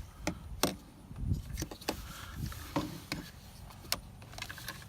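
Irregular light clicks and knocks of plastic steering-column trim and the turn-signal switch being handled while feeling for a hidden retaining clip, with one duller thump about a second in.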